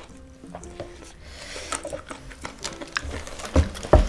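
Close-miked eating sounds: mouth clicks and smacks of chewing crispy fried chicken and licking fingers, with two loud thumps near the end. Light background music plays underneath.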